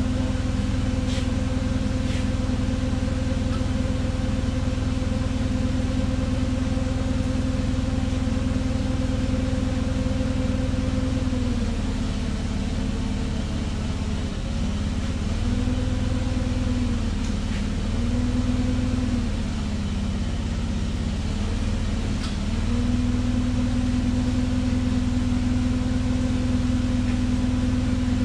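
Forklift engine running at a steady idle, its speed sagging and coming back up a few times in the middle.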